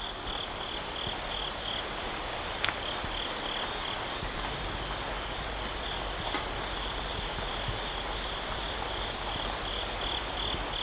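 Evening chorus of calling animals outdoors: a high, rhythmic chirping that pulses about three times a second without a break, with two faint clicks partway through.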